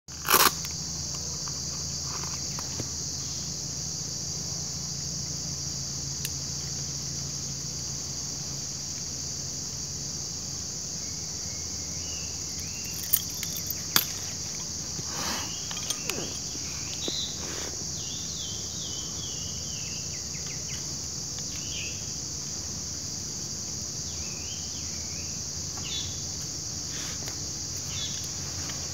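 Steady, high-pitched insect chorus in woodland, with a low hum that fades out about a third of the way in. Bird chirps come in through the middle, and there are a few sharp clicks, the loudest just after the start and two around halfway.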